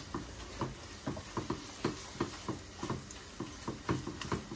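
Wooden spatula stirring and scraping thick fried-onion masala in a nonstick pot, with a soft stroke about two or three times a second over a steady low sizzle.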